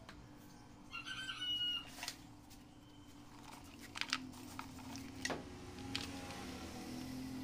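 A short pitched call, most like a chicken or other bird, about a second in, followed by a few sharp clicks and knocks as objects are handled, over a steady low hum.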